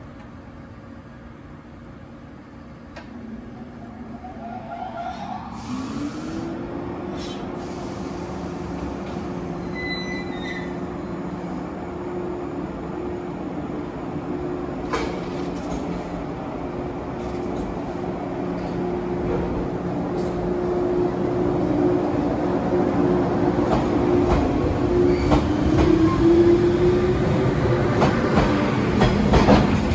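Electric multiple-unit train running slowly alongside a station platform, its running noise growing steadily louder as it nears and passes. From about six seconds in a steady tone runs under the noise, rising briefly in pitch near the end.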